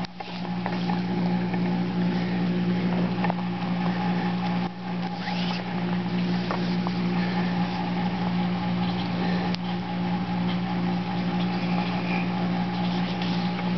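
A small motor running with a steady hum, with a few faint light clicks over it.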